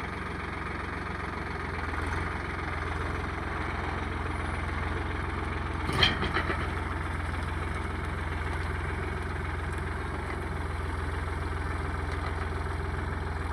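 Tractor diesel engine running steadily at low revs, with a single sharp clank about six seconds in.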